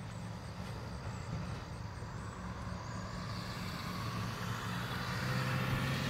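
Vehicle engine idling with a steady low hum, while road noise from another vehicle grows louder over the second half.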